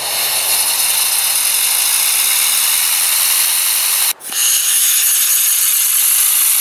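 Compressed-air Tesla turbine running, a loud steady rush of air with faint high whining tones, broken off for an instant about four seconds in.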